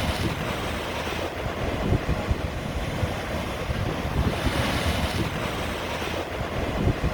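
Rain in strong wind: a steady hiss that swells twice in gusts, with wind rumbling on the microphone underneath.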